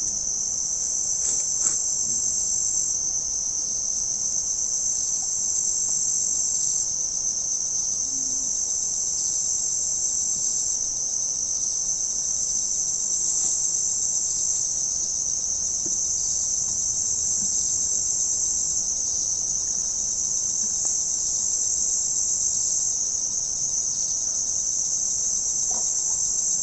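A steady, high-pitched insect chorus that keeps up without a break.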